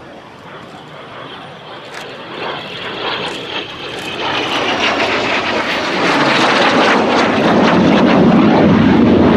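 Folland Gnat jet's single Orpheus turbojet on a fast pass: a high whine that slowly falls in pitch as the jet closes, building to a loud roar over the last few seconds as it goes by close overhead.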